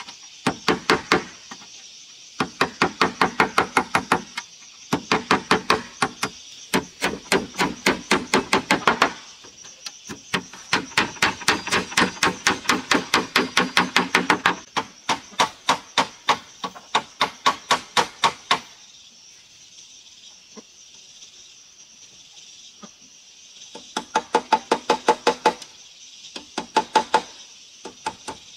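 Hammer driving nails through a corrugated fibre-cement roofing sheet into a wooden rafter: runs of quick, evenly spaced blows, several a second, broken by short pauses. Near the middle there is a stretch of a few seconds without blows.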